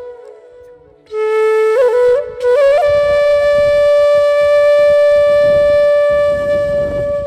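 Background music: a solo flute enters about a second in with a few short, bending notes, breaks off briefly, then holds one long steady note.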